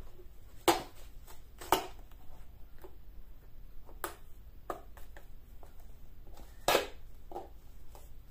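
Floral tape pulled off its roll in short, sharp rips as it is wrapped over floral foam in a plastic container, about four loud rips with fainter crackles and handling noises between.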